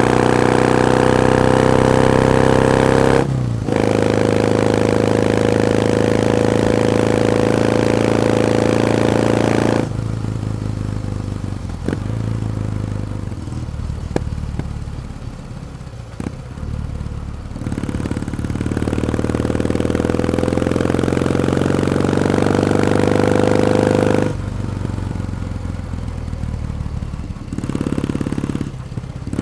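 Kawasaki W1 Special's vertical-twin engine pulling under throttle, its pitch climbing steadily, with a short break about three seconds in where the pitch drops, an upshift. About ten seconds in the throttle closes and the engine runs quieter on the overrun for several seconds, with a few light clicks. It then pulls and climbs again before easing off once more near the end.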